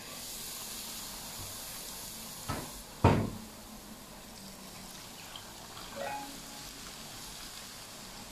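Hot oil ladled over ground chili flakes in a stainless steel bowl, sizzling and hissing as it scalds the chili into chili oil. A metal ladle knocks against the bowl, once lightly and then sharply about three seconds in, the loudest sound; the hiss eases after that.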